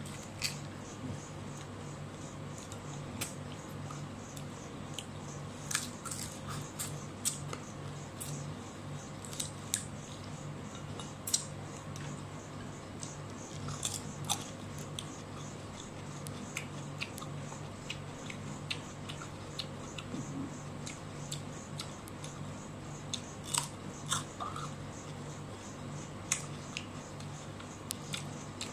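A person biting and chewing food eaten by hand, including crisp bites of raw cucumber: irregular sharp crunches and smacks scattered throughout, over a steady low hum.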